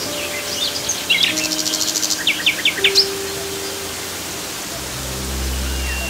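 Steady rush of a waterfall with songbirds chirping: a fast buzzing trill, then a quick run of four downward-sweeping notes in the middle. Soft held notes of background music underneath, with a deeper bass note coming in near the end.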